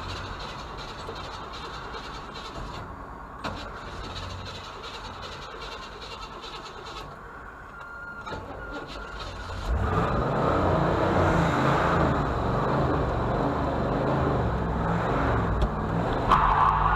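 Motor vehicle engine running, with a low, uneven rumble that gets much louder about ten seconds in; a single click about three and a half seconds in.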